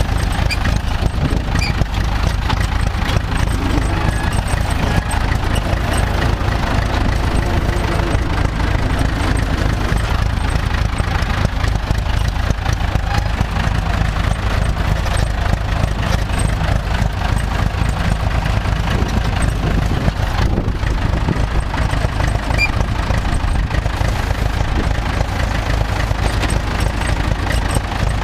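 Farm tractor's diesel engine running steadily at a low, even speed, with no revving or change.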